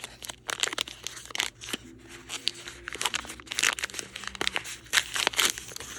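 Crinkling and tearing of a small plastic wrapper as a miniature toy item is unwrapped by hand, in quick irregular crackles.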